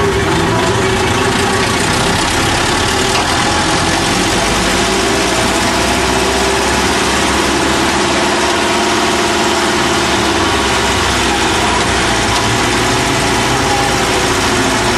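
IFA truck's diesel engine running steadily under load as the truck crawls through a muddy ditch, its note rising and falling slightly.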